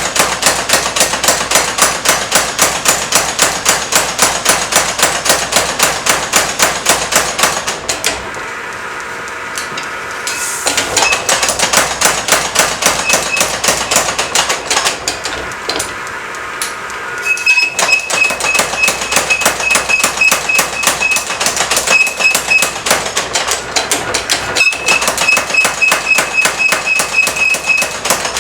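Power hammer striking hot steel in fast, even runs of about four to five blows a second, stopping briefly twice. In the later runs each blow carries a high ring.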